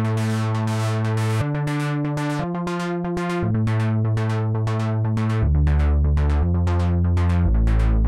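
Korg Mono/Poly V2 software synthesizer playing its "1980 Rhythmica" preset: a rhythmic, pulsing synth pattern over a deep bass line that changes note about once a second, dropping lower in the second half.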